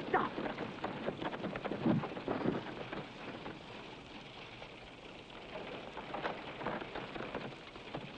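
Horse-drawn wooden wagons rolling over rough ground: a dense rattle of wheels and harness with a few louder creaks, fading as the wagons move away.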